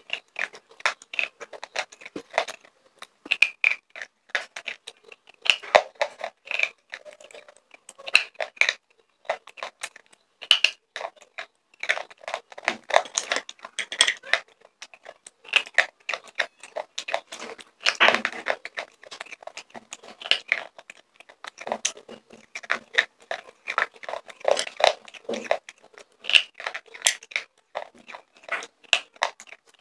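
Slate pencils being bitten and chewed close to a microphone: a continuous run of sharp, irregular crunches.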